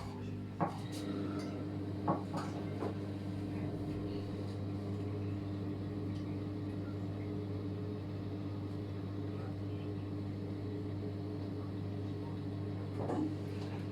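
A steady low mechanical hum, with a few light knocks and taps, a cluster in the first three seconds and one more near the end.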